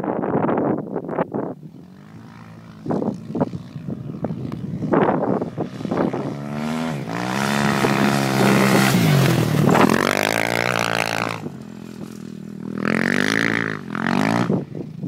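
Dirt bike engine revving up and down as it rides over soft sand, loudest as it passes close about 7 to 11 seconds in, its pitch rising and falling, then revving again as it climbs a dune near the end.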